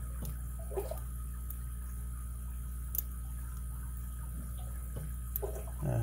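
A steady low hum with a few faint, sharp ticks from a steel lock pick working the pins of a Best padlock's interchangeable core, the clearest tick about halfway through.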